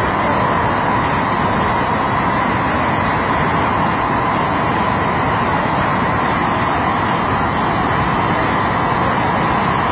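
Muddy flash-flood water in a swollen torrent, rushing and pouring over a drop with a loud, steady rush that never lets up.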